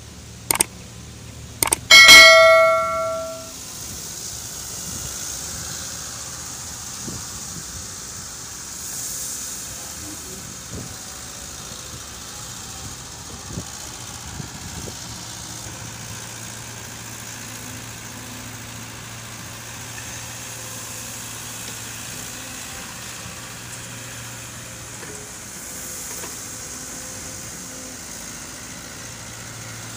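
Two mouse clicks, then a bell notification chime about two seconds in that rings out and fades, as a subscribe-button animation plays. After it, a diesel truck engine idles steadily with a low hum.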